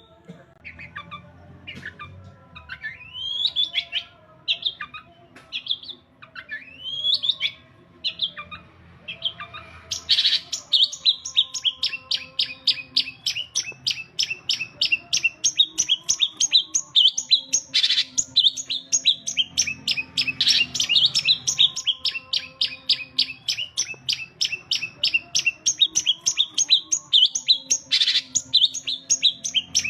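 Long-tailed shrike (cendet) singing: scattered rising whistled calls at first, then, about ten seconds in, a fast, steady run of sharp repeated chirps, about four a second.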